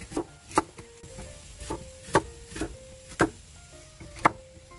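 A kitchen knife chopping Chinese mustard greens on a wooden cutting board: a series of sharp, irregularly spaced strikes, about one every half second, each blade hitting the board through the crisp stems. Soft background music plays underneath.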